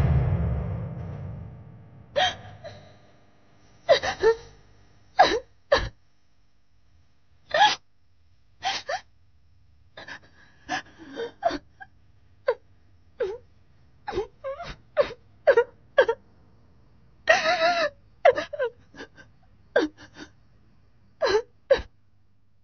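A woman crying: short, choked sobs and gasping breaths at irregular intervals, about one a second. It opens with a loud hit that rings and dies away over about two seconds.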